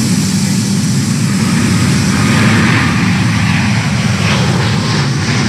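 Airbus A350's Rolls-Royce Trent XWB turbofans at takeoff thrust as the jet climbs out, a loud, steady jet noise that swells a little about halfway through.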